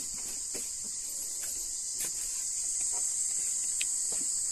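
Steady, high-pitched chorus of insects shrilling without a break, with a few faint taps.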